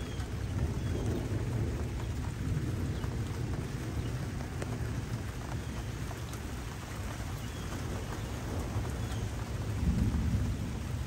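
Steady rain in a thunderstorm, with a low rumble of thunder underneath that swells near the end.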